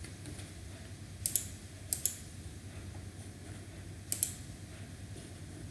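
A handful of short, sharp clicks from a computer keyboard and mouse, a second or two apart, over a faint low steady hum.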